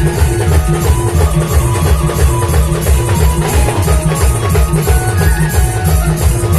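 Loud band music: a steady, driving drum beat under a short melody repeated over and over, with no singing.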